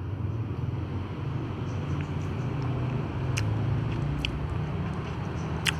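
Steady low rumble of distant traffic. Over it, in the second half, a few sharp clicks, the loudest near the end, as cats eat from plastic tubs.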